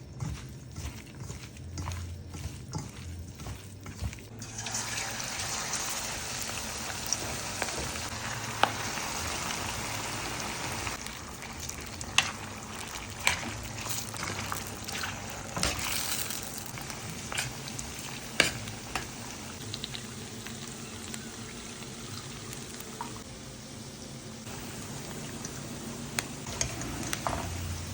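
Tofu and pork frying in hot oil, a steady sizzle with scattered sharp clinks of utensils. A run of quick, even knocks comes first, and the sizzle sets in about four seconds in.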